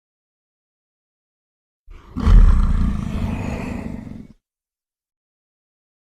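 A deep gorilla roar sound effect, heard once for about two seconds. It is loudest at its start and tails off, then cuts off abruptly.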